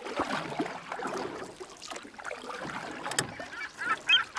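Outdoor background noise with a sharp click about three seconds in, then short, repeated bird calls near the end.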